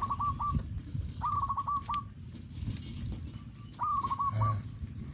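A dove cooing a short phrase of quick, clipped notes three times, over low rumbling and knocks.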